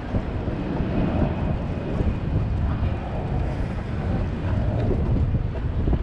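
Wind buffeting the microphone outdoors, heard as a steady, ragged low rumble.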